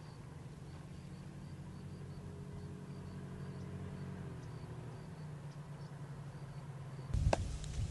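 A low steady hum, then about seven seconds in, sharp knocks of something being struck hard and repeatedly.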